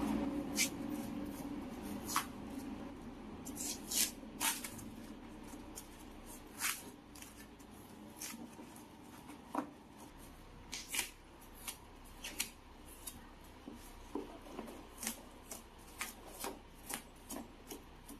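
Irregular short clicks, taps and light scraping from hand tools and plastic parts as a refrigerator's back is prised and taken apart, with a few sharper knocks among them.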